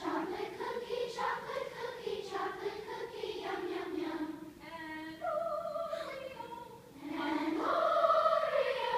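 Large children's choir singing a vocal warm-up exercise on sustained vowels. The line sinks in pitch over the first few seconds, then higher held notes come in about five seconds in, swelling to the loudest passage near the end.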